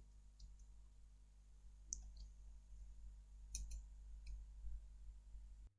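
Faint computer mouse and keyboard clicks, a handful of scattered taps, over a low steady hum that cuts off near the end.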